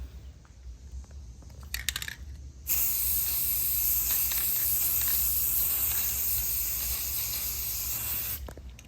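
Aerosol spray paint can spraying: one long steady hiss of about five and a half seconds that starts a little under three seconds in and cuts off shortly before the end. A few short clicks come just before it.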